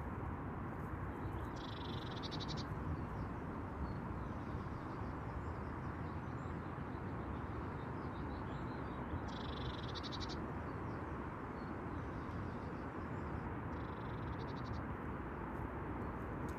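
An animal's high, rapid trilling call, heard three times for about a second each, over a steady low rumble of outdoor background noise.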